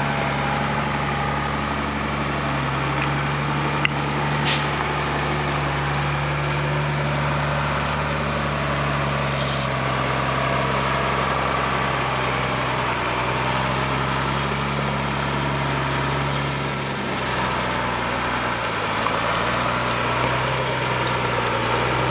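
Mercedes Unimog U1700L's diesel engine running steadily at low revs as the truck crawls along a rough off-road track, its note sagging briefly about seventeen seconds in. A short sharp click about four seconds in.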